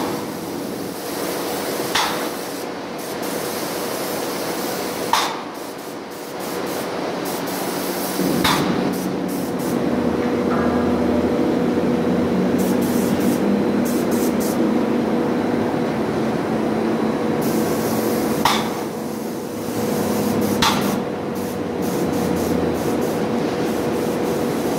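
Paint spray gun hissing steadily as it lays white paint onto a large steel tank, over the steady hum of the paint pump. The pump's low drone grows louder through the middle, and sharp clicks or knocks come every few seconds.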